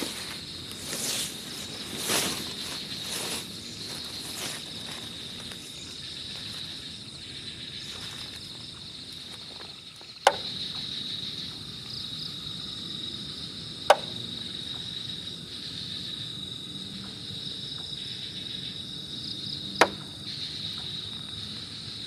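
Steady chirring of crickets, with a few rustling, step-like sounds in the first few seconds. Three sharp, short knocks cut through, about 10, 14 and 20 seconds in.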